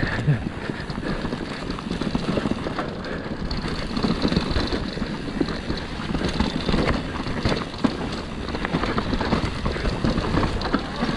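Mountain bike riding downhill on a dirt trail: tyres rumbling over the ground and the bike rattling and clattering with constant, irregular knocks.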